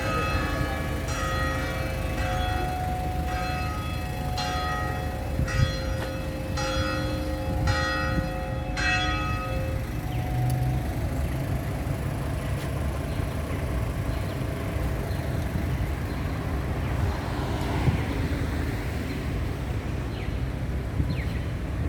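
Church bells ringing, struck about once a second, stopping about nine seconds in and fading out. Steady city background noise continues after.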